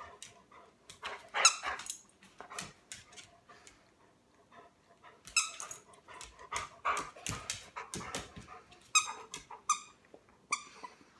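Dog giving short, high-pitched whines in scattered groups of a few at a time while tugging on a toy.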